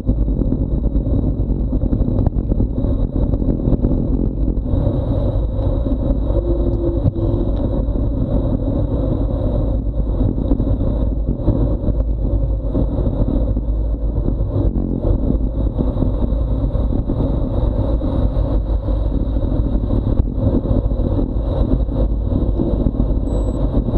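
Wind buffeting an action camera's microphone during a fast bicycle descent at 30 to 50 km/h, a loud steady rush with a faint high whine running under it. It grows a little brighter about five seconds in as the speed builds.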